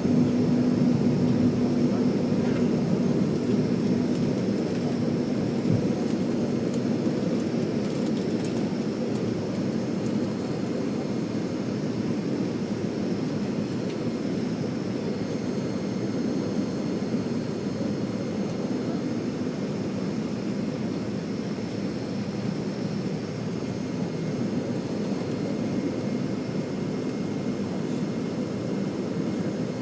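Jet airliner engines running at high thrust during takeoff and climb, heard from inside the passenger cabin. The sound is a steady rumble with a thin, high fan whine over it, and it grows gradually a little quieter.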